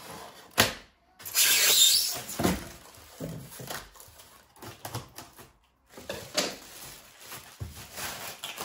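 Polystyrene foam packing blocks being pulled and lifted out of a cardboard box, with the foam scraping and squeaking and plastic wrap rustling. A sharp click comes about half a second in, a loud stretch of rustling and scraping follows about a second in, and scattered smaller knocks and rustles come after.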